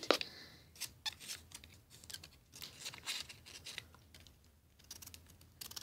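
Faint, irregular small clicks and rustles of a paper cape being handled on a LEGO minifigure.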